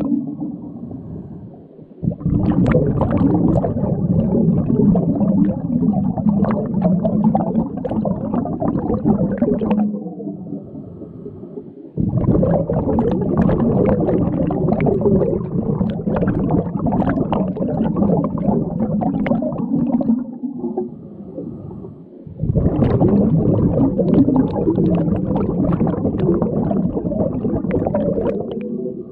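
Underwater scuba breathing: three long bursts of bubbles bubbling and crackling from a diver's regulator exhaust, with short, quieter pauses between them as the diver inhales.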